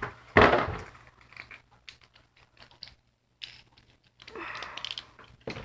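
Light clicks and rattles of plastic Beyblade tops and launcher being handled, with one louder knock about half a second in.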